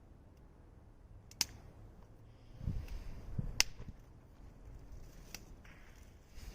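Wood fire crackling, with three sharp pops spaced a couple of seconds apart, and a few soft low thumps near the middle.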